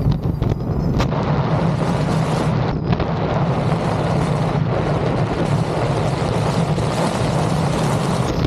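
Steady wind rush buffeting the microphone, with a low road rumble underneath, while moving at speed. There are a couple of faint clicks in the first second.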